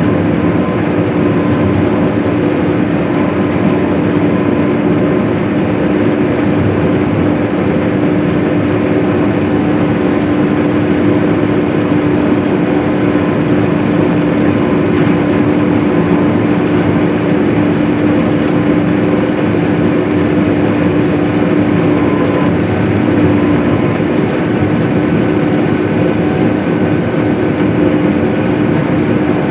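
Case IH swather running steadily while cutting hay: a constant engine drone with a strong, even hum and no change in pace.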